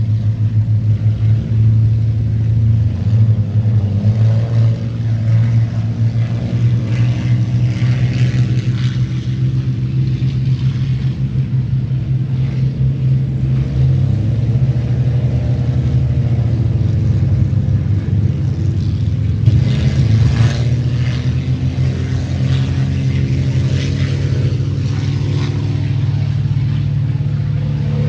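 Spitfire V12 piston engines at take-off power as the aircraft roll and climb out: a loud, deep, pulsing drone. Its pitch shifts as aircraft pass, about halfway through and again about two-thirds of the way in.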